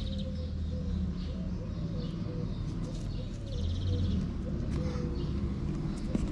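Domestic cat purring steadily while being stroked, with small birds chirping in short rapid runs.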